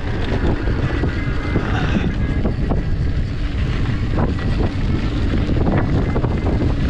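Wind buffeting the microphone of a camera riding on a downhill mountain bike, with tyres rolling over the trail and short clicks and knocks from the bike.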